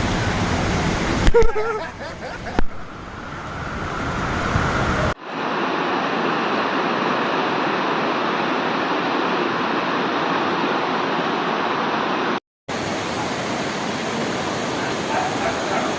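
Steady rushing of water, continuing across several abrupt cuts between clips, with a short louder sound with a brief rising tone about a second in.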